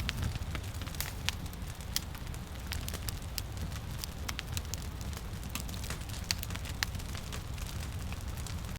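Firewood burning, crackling with irregular sharp pops and snaps over a low steady rumble.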